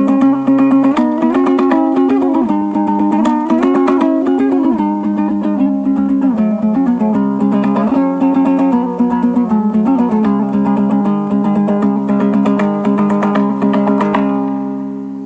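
Background music on a plucked string instrument: rapid picked notes over held low notes. It fades out near the end.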